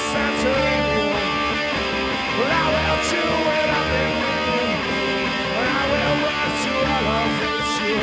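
Live rock band playing an instrumental passage without vocals: electric guitar chords ringing over bass and drums, with a few sharp hits near the middle and end.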